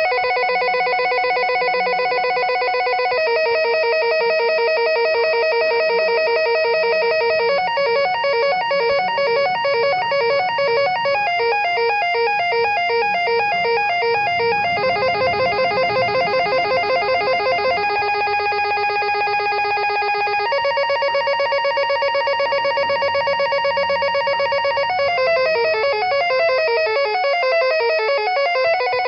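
Electronic landline telephone ringtone: synthesized beeping tones in fast repeating warbles and note patterns that change every few seconds, with quick falling runs of notes at the start and again near the end.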